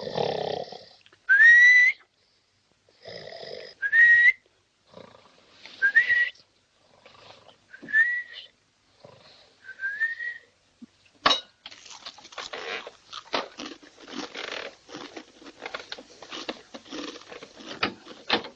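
Exaggerated comic snoring: a rasping snore on the in-breath, then a whistle rising in pitch on the out-breath, repeated about every two seconds and growing fainter. About eleven seconds in comes a sharp click, then a run of soft rustling.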